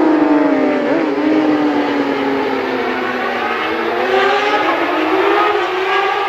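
Racing motorcycle engines at high revs on a road-racing course: the engine note drops near the start, then climbs steadily from a few seconds in as the bikes accelerate.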